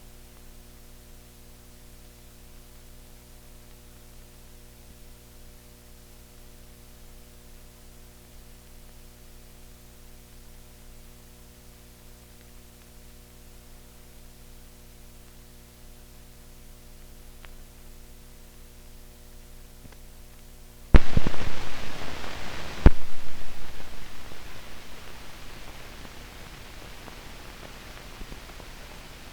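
Steady electrical hum and hiss of an old film soundtrack. About two-thirds of the way through come two sudden loud bangs about two seconds apart, the second dying away over several seconds.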